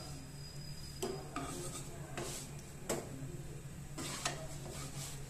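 A wooden spatula scrapes and taps on a flat griddle pan (tawa) as a chapati is pressed and turned: several short scrapes and knocks about a second apart, over a steady low hum.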